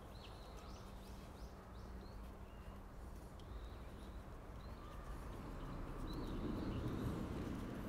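Several short, high bird chirps over a faint steady low hum, with soft rustling of jute twine being wound and knotted around a plastic-coated garden stake that swells about six seconds in.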